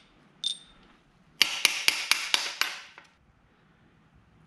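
A single metal click, then a quick run of about six sharp metallic taps with a brief ring, as the thrust main bearing cap is knocked loose from a Ford 351 Windsor stroker block and lifted off.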